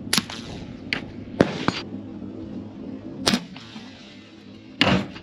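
About six short, sharp cracks and clicks over five seconds, from shooting a CVA Scout break-action pistol in .300 Blackout fitted with a Dead Air Nomad-LT suppressor, which keeps the shots quiet.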